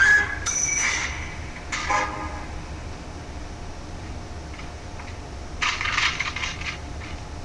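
Typewriter sounds: a high metallic bell ding about half a second in, a knock near two seconds, then a short burst of clacking keys around six seconds in.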